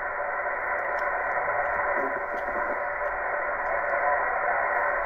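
A ham radio transceiver's speaker plays steady receiver hiss tuned to 28.517 MHz on the 10-metre band. The sound is cut off above about 2.5 kHz, like a sideband receiver, and a weak station's voice comes faintly through the noise.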